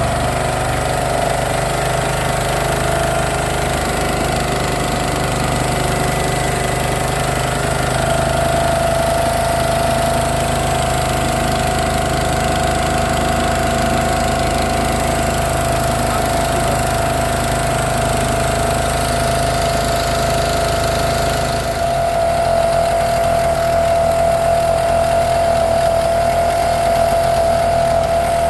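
Motorboat engine running steadily with a constant hum and a steady mid-pitched tone; near the end its deep rumble drops away and the note shifts.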